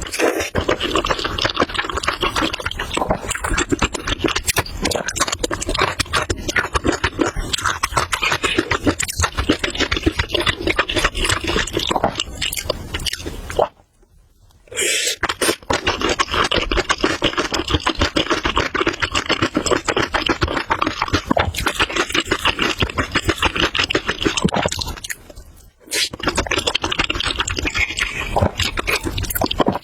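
Close-miked eating sounds: noodles being chewed, with a continuous stream of wet mouth clicks and crackles. The sound stops briefly twice, about halfway through and again near the end.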